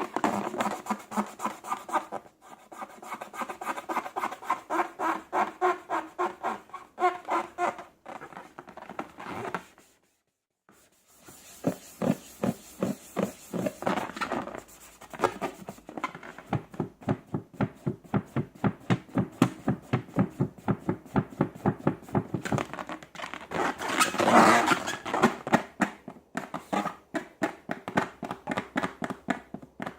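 Slime being squeezed and poked by hand, a fast string of sticky clicks and small air-pocket pops, several a second, stopping briefly about ten seconds in.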